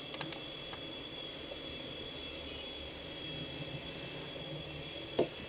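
A few faint clicks and, about five seconds in, one short knock from handling the parts of a computer being taken apart, over a steady background hiss with a thin high whine.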